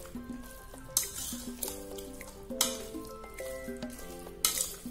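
Background music: a simple melody of held notes, with bright hissing cymbal-like hits every second or two.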